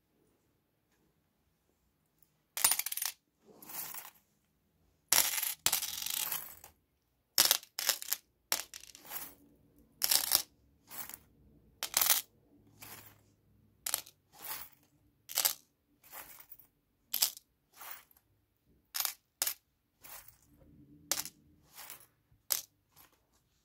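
Small metal charms clinking and jingling against each other as a hand stirs and picks through them, in a string of short rattles with a longer one about five seconds in.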